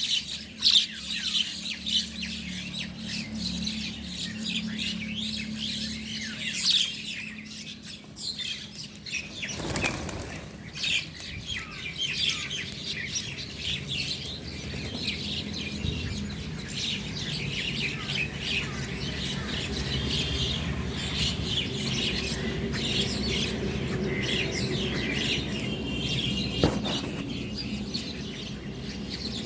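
A flock of small birds chirping and twittering, with many overlapping short calls throughout and a burst of wing flapping about ten seconds in.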